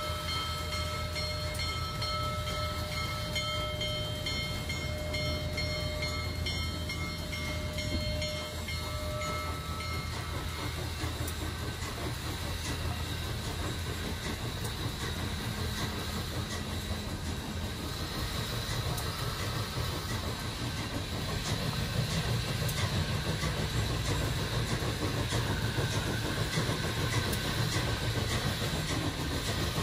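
Union Pacific Big Boy No. 4014 articulated steam locomotive rolling past with a steady low rumble, growing louder about two-thirds of the way through as it draws level. A steady chord of held tones sounds over the first third and stops about ten seconds in.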